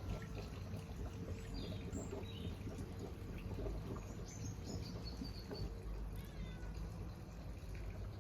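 Scattered short bird chirps over a steady low background noise with faint small ticks.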